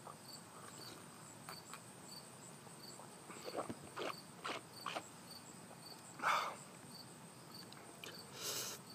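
Faint crickets chirping in evenly spaced high chirps, under a few short mouth and breath sounds from a person whose mouth is burning from a hot pepper, with a louder exhale about six seconds in and a hissing breath near the end.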